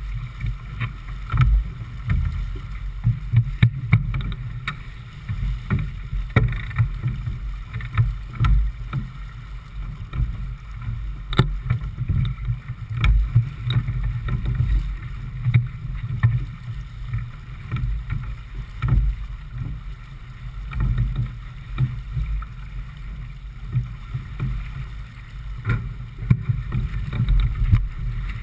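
Wind and water noise aboard a J/24 keelboat sailing upwind, heeled over: a low, uneven rumble that rises and falls, with occasional sharp knocks.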